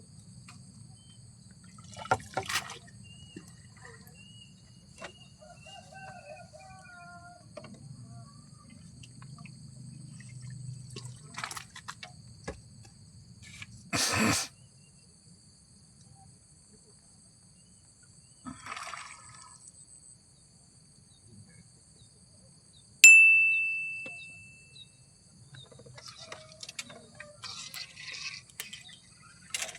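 Water splashing and sloshing in short bursts, the loudest about 14 seconds in, over a steady high insect drone. About 23 seconds in comes a single sharp metallic ding that rings on and fades over about two seconds.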